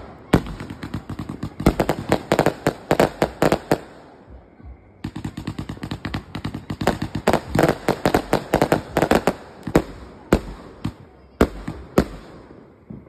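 Fireworks going off in rapid volleys of sharp bangs and crackles as multiple shots launch and burst. There is a short lull about four seconds in, then another dense run, and a few separate bangs near the end.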